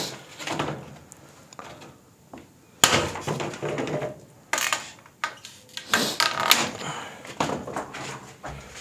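Irregular knocks, scrapes and rustles of loose debris being disturbed, with several sharp knocks between about three and seven seconds in.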